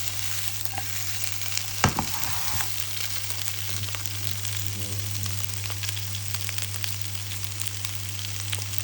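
Confit potatoes sautéing with garlic in hot fat in a pan: steady sizzling with fine crackles, and a sharp knock about two seconds in.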